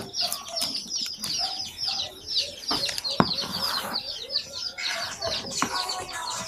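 Many small birds chirping busily and without a break, short high-pitched calls sliding downward several times a second. A few sharp clicks sound in between, one about three seconds in.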